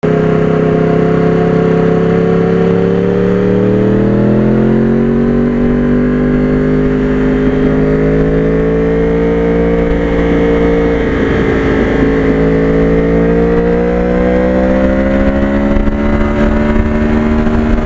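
Motorcycle engine running steadily under way. Its pitch climbs slowly a few seconds in, holds, then climbs again over the last few seconds.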